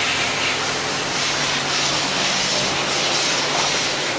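FEMCO HL-35 slant-bed CNC lathe running: a steady mechanical hiss and hum, with a low hum growing stronger about a second in.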